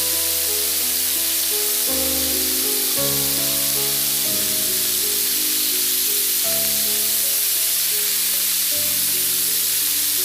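Marinated chicken pieces sizzling steadily as they fry, with background music playing.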